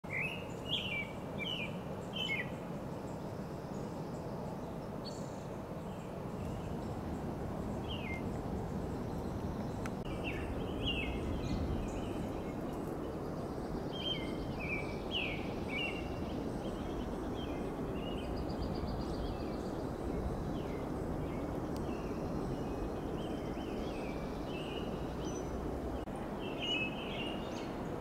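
American robins singing: groups of short rising and falling phrases with pauses between them, over a steady low rumble of background noise.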